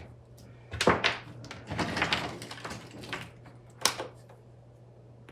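Small electronics parts and cables being handled and put away: rustling and clattering with a sharp knock about a second in and another about four seconds in.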